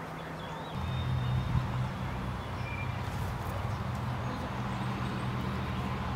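A low, steady drone comes in about a second in and holds, over a background hiss with a few faint high chirps.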